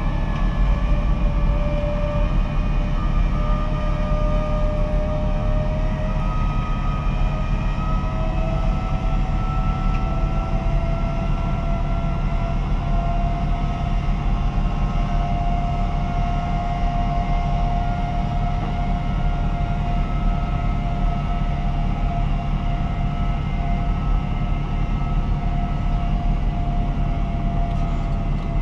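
JCB 437 HT wheel loader's engine and drivetrain running steadily under load while pushing grass silage, heard from inside the cab, with a whine that slowly rises in pitch.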